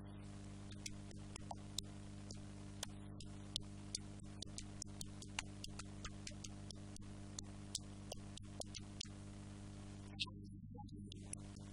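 Low steady electrical hum with many sharp clicks at uneven intervals over it; the clicks stop shortly before the end.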